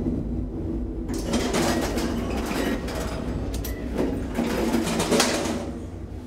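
Schindler hydraulic elevator car travelling with its doors shut: a steady low machine hum, with a noisy stretch of clicks and rattling from about a second in until near the end.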